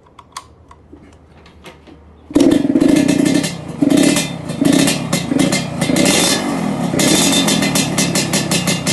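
Two-stroke motorcycle with an aftermarket 'kolong telo' exhaust and straight-through silencer, coming in suddenly and loudly about two seconds in, then revved in repeated throttle blips with a crackling, rapid-fire exhaust note. Before that there are only a few faint clicks.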